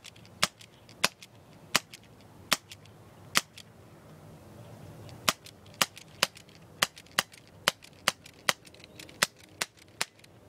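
Airsoft pistol firing single shots one after another, each a sharp crack: about fifteen shots, a pause of about two seconds partway through, emptying a magazine.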